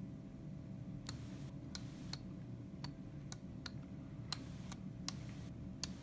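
Small switches on a circuit board being flipped and pressed: about ten sharp clicks at an uneven pace, the loudest a little past the middle, over a low steady hum.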